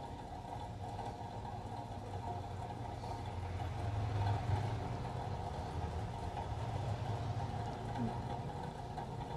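Steady low motor hum, a little louder about four seconds in.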